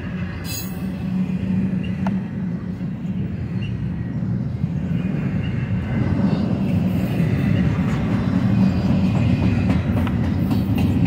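Double-stack intermodal well cars of a freight train rolling past, a steady rumble of steel wheels on rail that grows a little louder about halfway through.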